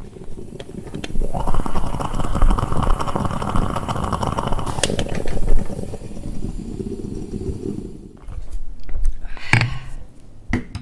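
Stovetop moka pot on a gas burner sputtering as it brews, a rough rumbling that starts about a second in and eases off about halfway through. A shorter burst and a click follow near the end.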